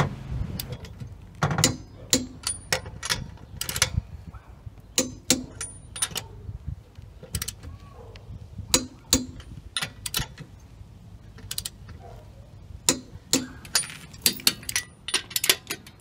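Click-type torque wrench on a 21 mm socket ratcheting lug nuts tight on a steel wheel: irregular sharp metallic clicks, some with a brief high ring, as the wrench ratchets and breaks at its set torque.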